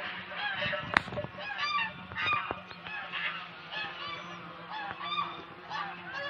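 A flock of geese honking, many short calls following one another and overlapping, with one sharp click about a second in.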